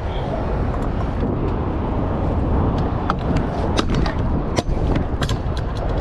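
Trick scooters rolling on concrete, with scattered sharp clacks of decks and wheels hitting the ground, over a steady low rumble.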